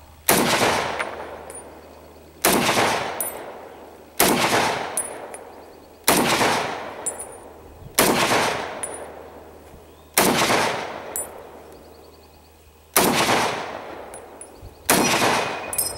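Eight rifle shots from a semi-automatic M1 Garand in .30-06, fired one at a time about two seconds apart, each trailing a long fading echo. Right after the eighth shot there is the metallic ping of the empty en bloc clip ejecting.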